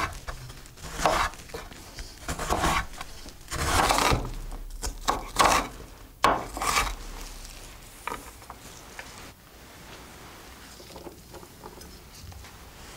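Chef's knife cutting and chopping an onion on a wooden board: a series of uneven, crunchy chops and rasping scrapes for about the first seven seconds, after which it goes quieter with only a few light taps.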